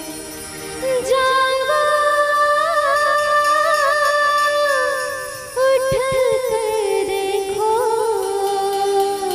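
Bhajan music: a singer holds long, wordless, ornamented notes over the accompaniment, with one long phrase followed by a second, lower one.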